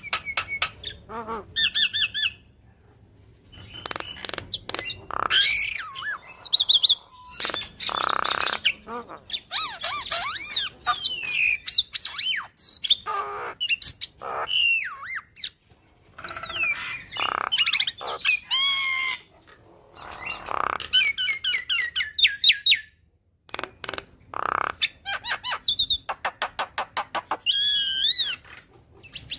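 Javan myna singing a long, varied song of harsh squawks, whistled glides and fast runs of clicks, broken by a couple of short pauses.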